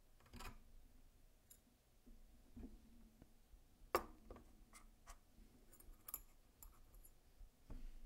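Small metal parts of a folding knife being handled during disassembly: scattered light clicks and taps, with the loudest tap about four seconds in as a handle piece is set down on the tray.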